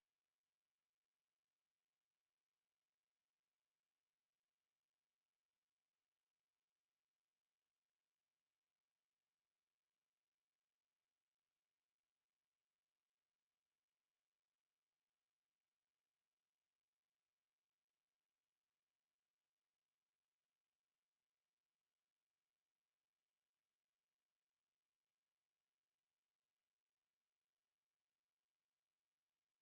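A pure 6463 Hz sine-wave test tone, a single steady high-pitched whistle held without change.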